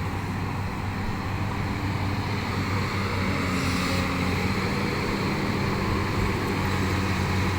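Backhoe's diesel engine running steadily, an even low hum.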